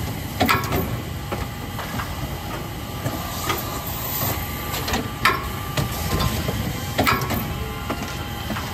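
Automatic carton erector on a packaging line running, folding corrugated cardboard blanks into boxes: a steady mechanical hiss and hum with sharp clacks every two seconds or so.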